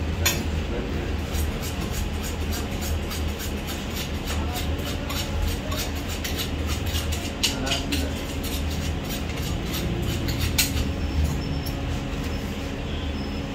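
Cleavers chopping raw meat on a wooden stump block: a quick, irregular run of sharp knocks that thins out near the end, over a steady low hum.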